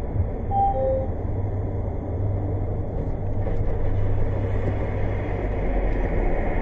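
Steady road and engine drone of a car driving at highway speed, heard through a dashcam inside the car. Two short falling tones sound about half a second in.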